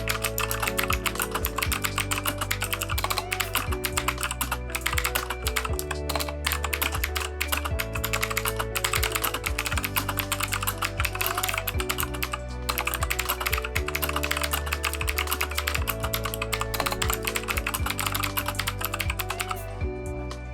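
Fast, continuous typing on a Keychron K2 mechanical keyboard fitted with unlubed factory Gateron switches, the keystrokes stopping about a second before the end, over background music.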